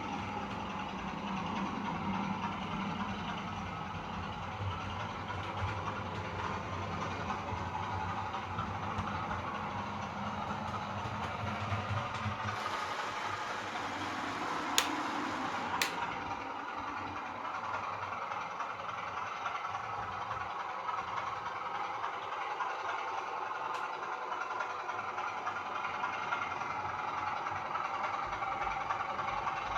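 OO gauge model class 27 diesel locomotive with a DCC sound decoder playing a diesel engine idling through its small onboard speaker. The low rumble drops away about halfway through, and two sharp clicks come about a second apart just after.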